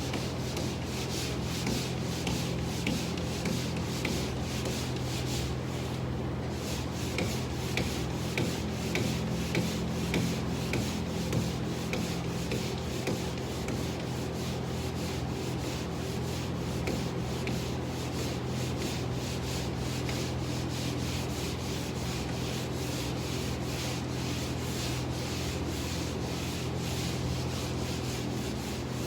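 Pole sander's sandpaper rubbing over drywall in continuous back-and-forth strokes, a steady scratchy scraping, over a steady low hum.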